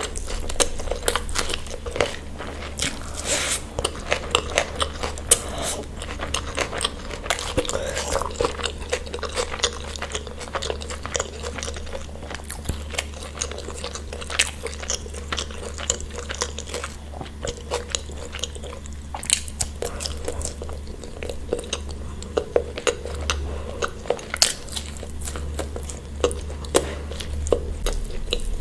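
Close-miked eating: a person chewing and biting food, with many irregular crunches and mouth clicks, over a steady low hum.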